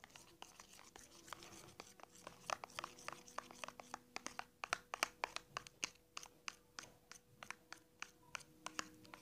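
Thin stick stirring a thick pink soap-and-salt slime mixture in a plastic tub: quick, irregular faint clicks and scrapes of the stick against the plastic and through the mixture, several a second.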